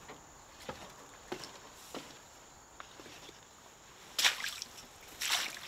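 Light clicks and knocks of a rifle and its sling being handled, then loud rustling crunches a little after four seconds and again near the end, as someone climbs down off a hunting buggy and steps into dry grass and brush.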